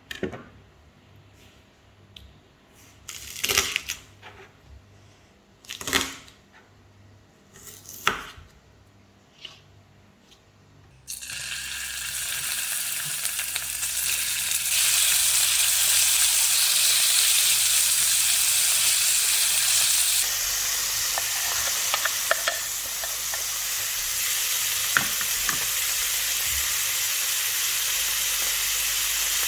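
A few separate kitchen knocks, then from about eleven seconds in, food starts sizzling in a hot pan, a steady frying hiss that comes on suddenly.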